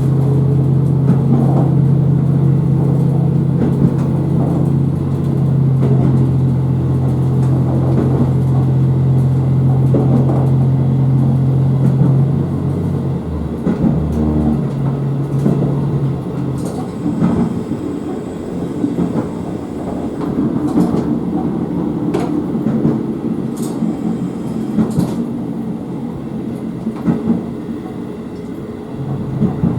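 KiHa 54 diesel railcar under way: its engine drones steadily under power, then throttles back about 13 seconds in. The railcar coasts with scattered clicks and knocks from the running gear, and the engine picks up again at the very end.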